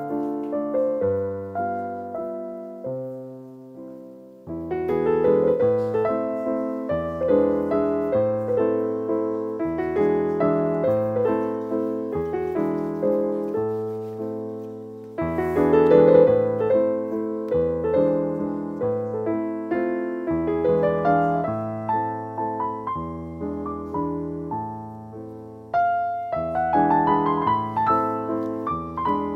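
Background piano music: a melody of struck notes over lower bass notes, in phrases that fade away a few times before the next one starts.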